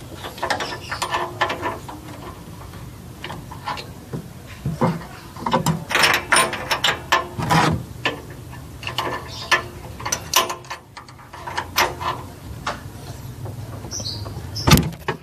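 Ratchet wrench clicking in short irregular runs, with metal tool clinks, as a car spark plug is worked loose; the plug is fairly tight.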